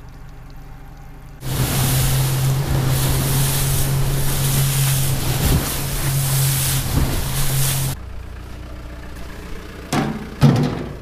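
Yamaha outboard motor running at a steady speed, with wind and water rushing past, for about six seconds. The sound then cuts off abruptly to a low hum, and two short knocks follow near the end.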